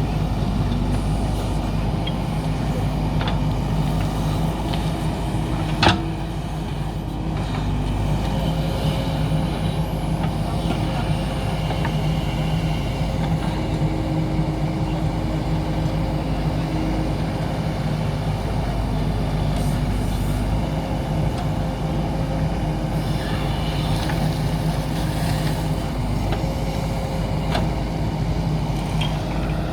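JCB backhoe loader's diesel engine running steadily as the machine works, with a single sharp clank about six seconds in.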